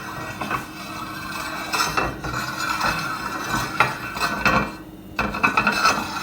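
Foley spinning sound effect: a continuous rattling, scraping clatter with scattered clicks, like a hard object spinning against a surface, with a brief lull about five seconds in.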